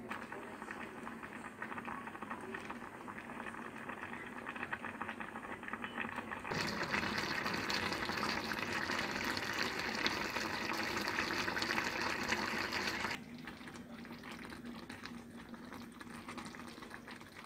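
Saucepan of diced vegetables in curry liquid simmering, bubbling steadily. The bubbling grows louder for about six seconds in the middle, then drops back suddenly to a quieter simmer.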